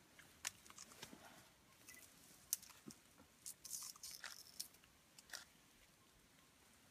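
Scattered crackles and snaps of leaves and stems in dense undergrowth, in a quiet forest. The loudest snap comes about two and a half seconds in, then a cluster of crackling follows before it settles.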